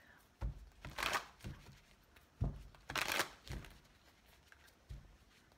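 Spellcasters tarot deck being shuffled by hand: cards sliding and slapping together in short, irregular bursts, the longest a little past the middle.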